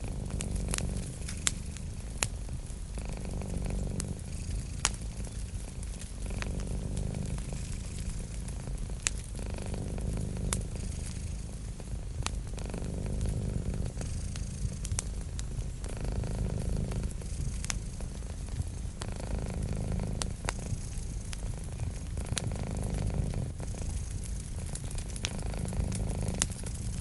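Cat purring steadily, a low rumble that swells and eases every few seconds with its breathing, with sharp pops and crackles of a wood fire scattered throughout.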